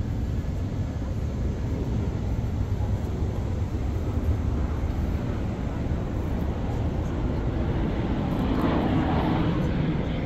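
Steady low rumble of city traffic engines, swelling near the end as something louder passes.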